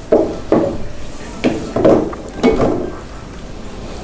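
Wooden spatula stirring a thick coconut-milk curry in a frying pan, scraping through the sauce and against the pan in uneven strokes about every half second.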